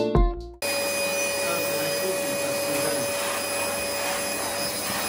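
Canister vacuum cleaner running steadily: a constant motor whine over the rush of air. In the first half-second, a guitar-and-piano music track ends abruptly just before the vacuum comes in.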